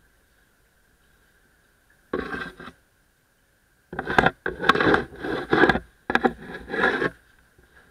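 Close scraping and rubbing noises right at the worn camera: one short spell about two seconds in, then several rough strokes with a few sharp knocks from about four to seven seconds in.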